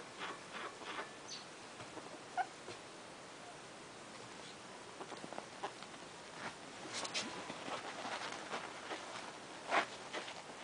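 Two ferrets play-fighting on bedding: scuffling and scratching, with scattered short, sharp sounds. It is busiest over the last few seconds and loudest about ten seconds in.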